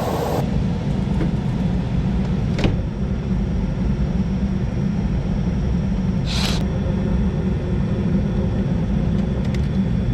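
Gas furnace blower with a newly installed motor and blower wheel running steadily after start-up, a steady low noise of the fan moving air. A sharp click about two and a half seconds in and a brief hiss around six seconds in.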